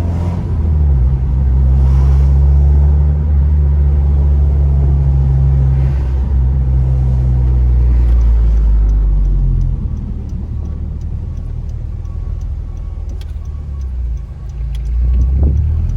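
Ninth-generation Honda Civic Si's 2.4-litre four-cylinder engine and exhaust droning steadily while driving. It eases off about ten seconds in and picks up again near the end.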